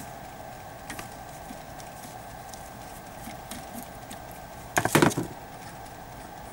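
Short clatter of metal handling clicks about five seconds in, the loudest sound, as a small hex driver is worked at and taken off the split clamp's screw. There is a faint click about a second in, over a steady background hum.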